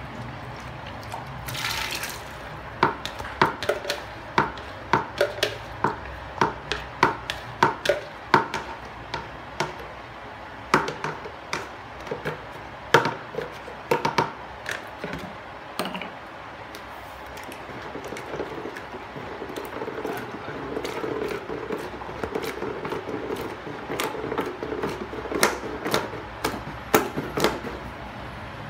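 Pukis batter being mixed in a plastic bucket. First come sharp clicks and knocks, about two a second, as a whisk strikes the bucket while liquid is poured in and stirred. In the second half a wooden paddle churns the thick batter with a steadier noise and knocks against the bucket.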